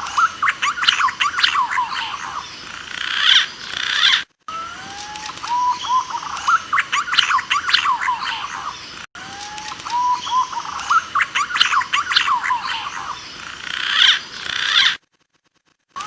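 Looped recording of green pigeon (punai) calls played as a hunting lure: a few rising whistled notes followed by a flurry of higher, sharper chirping notes. The phrase repeats three times, about every five seconds, with short silent breaks between repeats, the longest about a second near the end.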